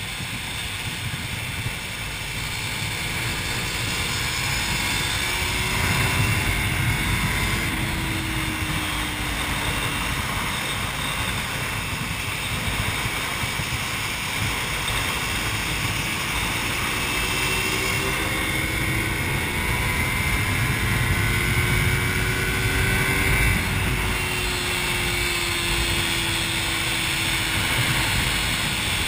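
Sport motorcycle engine heard from on board at track speed, its pitch climbing slowly as it accelerates and then falling away as the throttle comes off, twice. Heavy wind rush on the microphone underneath.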